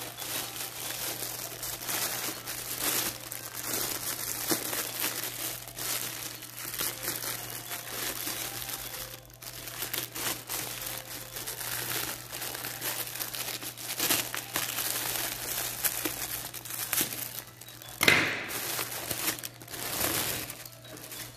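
Thin plastic mailer bag crinkling and rustling as it is handled and opened, with irregular crackles throughout and a louder crinkle about 18 seconds in.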